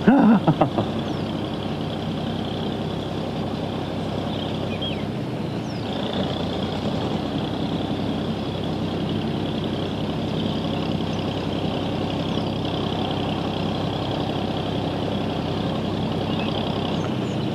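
Engine of the gravel pit's water pump running steadily, a constant drone made of many evenly spaced low tones.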